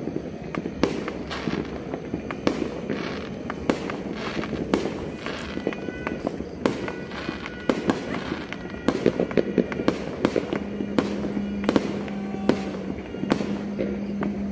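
Many New Year fireworks and firecrackers going off across a city: a continuous crackle of pops and bangs at irregular intervals. A steady low tone joins in about ten seconds in.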